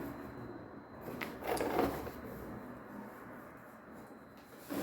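Light handling noises of a boxed ring light being unpacked: a sharp click about a second in, then brief rubbing and knocking of packaging before it settles down quiet.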